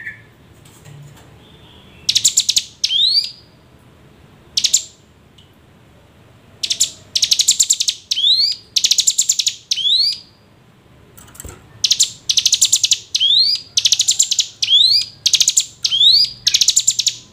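Ciblek gunung, a prinia, calling: loud rapid chattering trills, each under a second. Many are followed by quick upward-sweeping notes, and they come in runs with short pauses between.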